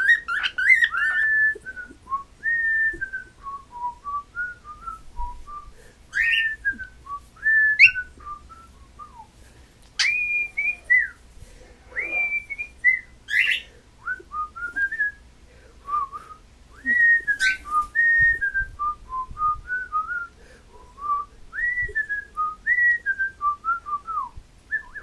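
Pet cockatiel whistling a long run of short notes that slide up and down, a learned whistle, broken now and then by a few sharp, high chirps.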